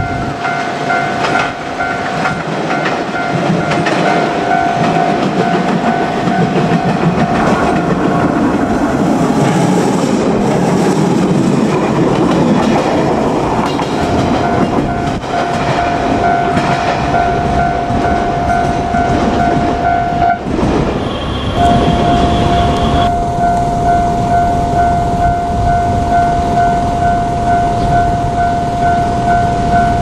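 Japanese level-crossing warning bell ringing on and on, while a JR Kyushu 817-series electric train's running noise swells and fades through the middle. After a brief break about two-thirds of the way in, the bell goes on ringing.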